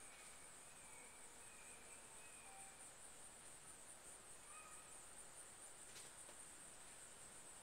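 Near silence with a faint, steady, high-pitched insect trill, with a few faint short chirps scattered through it.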